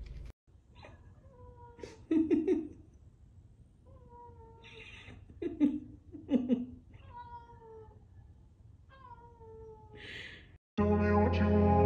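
A cat meowing over and over, six or seven calls that each fall in pitch, a few of them louder. Music starts abruptly near the end.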